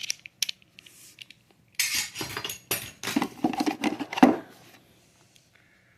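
Metal hand tools clinking and clattering as they are rummaged through and handled in a tool bag: a few light clicks at first, then a burst of irregular clatter about two seconds in that dies away after about four seconds.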